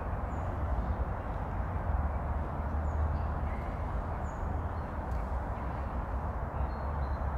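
Outdoor background noise: a steady low rumble with a few faint, short, high bird chirps.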